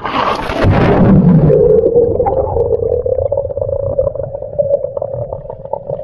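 Someone jumping into a swimming pool: a loud splash, then a muffled underwater drone with scattered pops and bubbling.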